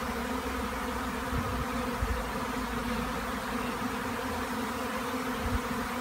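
A large swarm of honeybees buzzing steadily in flight, a dense drone of many bees at once.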